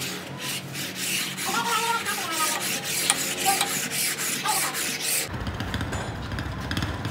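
Rapid back-and-forth rubbing strokes, like hand sanding or filing, about four a second. About five seconds in they stop abruptly and give way to a steady low rumble.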